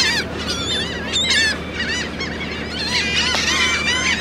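A large flock of gulls calling over and over, many short overlapping squawks at once, as they feed behind a shrimp trawler's nets. A steady low engine drone runs underneath.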